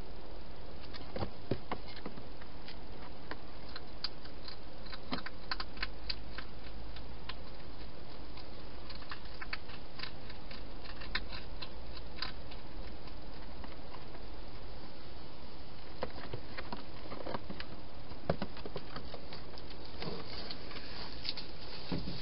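Wild hedgehog feeding at bowls inside a plastic feeding box: irregular sharp clicks of eating and jostling over a steady hiss, with a few duller knocks near the end.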